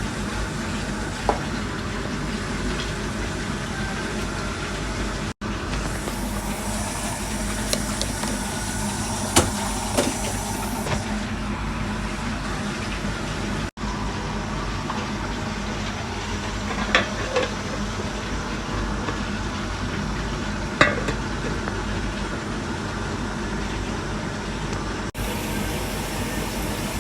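Fish cooking in a pan, sizzling steadily over a low hum, with a few sharp clicks of a utensil stirring against the pan.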